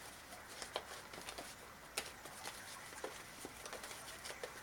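Quiet room tone with a scattering of faint, brief clicks and taps.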